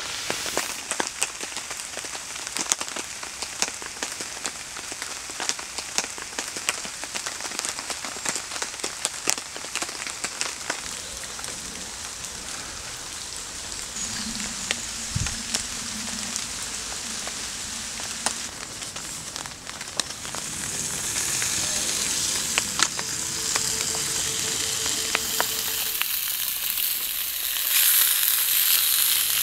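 Sausages sizzling and crackling in a frying pan, a dense patter of small pops. A louder, steadier hiss comes in near the end.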